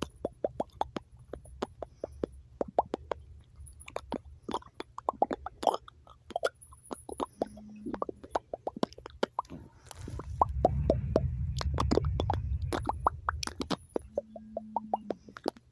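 A quick, irregular series of short pitched plops, several a second, over a low rumble that grows louder about ten seconds in and dies away a few seconds later.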